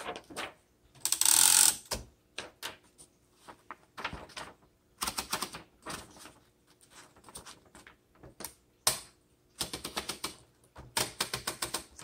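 A sheet of paper rustles loudly as it is picked up and fed behind the platen of a 1926 Underwood four-bank portable typewriter. Scattered clicks follow, then quick runs of ratcheting clicks near the end as the platen is turned to wind the paper in.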